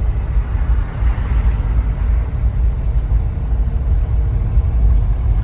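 Steady low rumble of road and engine noise heard from inside the cabin of a 2012 Scion being driven, with the climate-control fan blowing at full speed.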